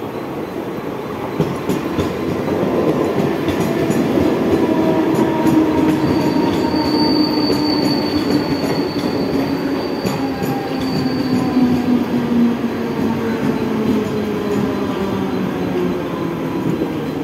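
Mumbai suburban EMU local train running in along the platform: a rumble with wheels clacking over rail joints and an electric whine that falls slowly in pitch as the train slows. A thin high wheel squeal sounds for about five seconds in the middle.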